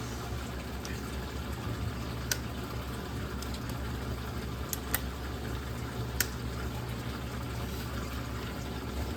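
Steady low hum and water noise from reef aquarium equipment, with four sharp plastic clicks as a Neptune Trident reagent bottle is handled and fitted into its tray: one about two seconds in, two close together around five seconds, and one near six seconds.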